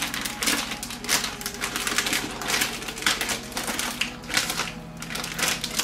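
Plastic one-gallon zip-top bag crinkling and rustling as it is handled in gloved hands and a beef roast is slid into it: a dense run of irregular crackles.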